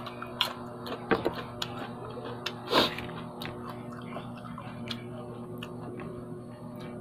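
Biting and chewing a piece of raw green fruit: a scatter of short sharp clicks, the loudest nearly three seconds in.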